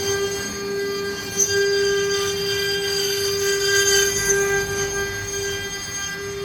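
CNC router spindle running steadily as it cuts serish wood, a constant pitched whine over the rough noise of the bit in the wood.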